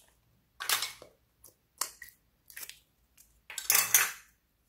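Green slime being taken out of a small round container with a plastic utensil and by hand: handling clatter, scraping and slime noises in about five short bursts, the loudest and longest about three and a half to four seconds in.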